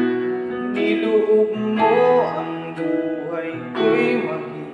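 Electronic keyboard playing a slow worship-song accompaniment, with sustained chords struck anew about every second or two.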